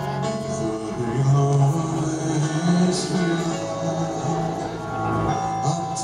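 A live rock band's slow ballad played through a concert PA and heard from the crowd: low sustained notes with string and guitar accompaniment, and a low male voice singing.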